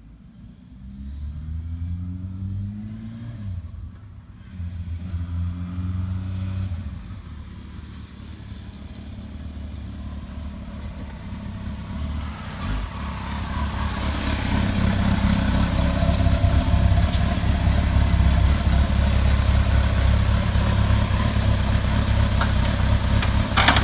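Motorcycle engine revving up twice in the first few seconds, each time rising in pitch, then running steadily and growing louder from about twelve seconds in.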